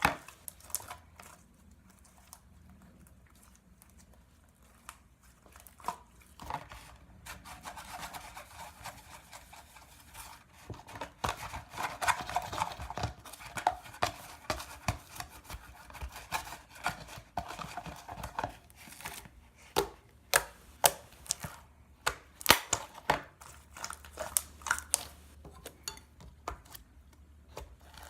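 Homemade slime being worked by hand: rubbing and crinkling for a while, then a run of sharp clicks and pops over the last several seconds.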